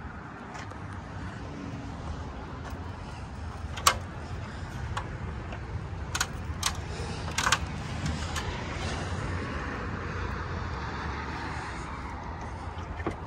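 Steady rumble of distant road traffic, with a few sharp clicks, one about four seconds in and three more between about six and seven and a half seconds.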